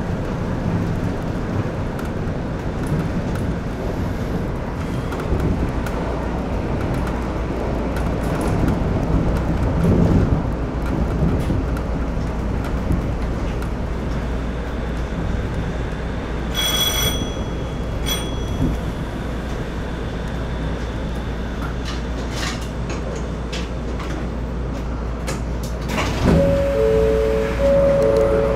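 Cab running noise of a Shonan Monorail car, a rubber-tyred suspended monorail: a steady low rumble and hum as it runs in and draws up at a station. About two-thirds through there is a short high electronic beep, and near the end a two-note chime repeats.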